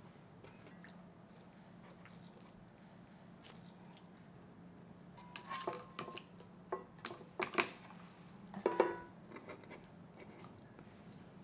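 Raw chicken breast pieces being handled and set into a pot: a quiet stretch over a faint steady hum, then from about halfway a few light knocks and taps of meat and hands against the pot and cutting board.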